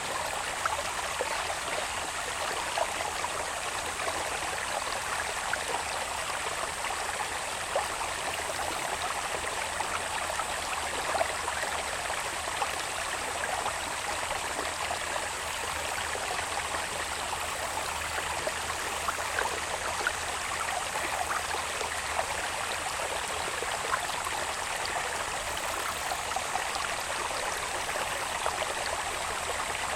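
Water in a small irrigation channel running down from the hills babbles steadily, with fine trickling ticks. A steady high-pitched insect drone runs under it throughout.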